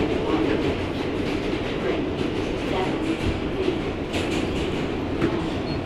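Inside a moving New York City subway car: the steady rumble of the train running on the track, with scattered clicks from the wheels.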